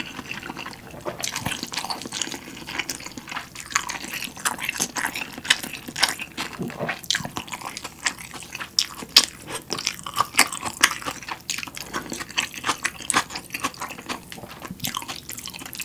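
Close-miked eating of instant noodles in bone broth: irregular wet chewing, slurping and small clicking mouth sounds.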